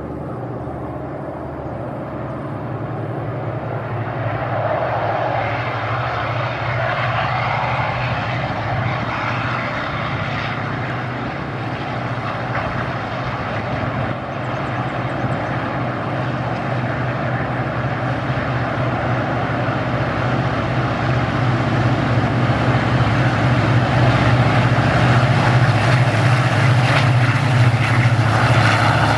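Diesel locomotive hauling a passenger train, its engine running with a steady low drone. It grows louder as the train approaches and is loudest near the end as it comes close.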